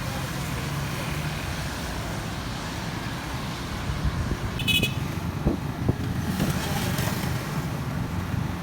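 Steady low rumble of road traffic, with a brief high horn toot about halfway through and a few sharp knocks just after.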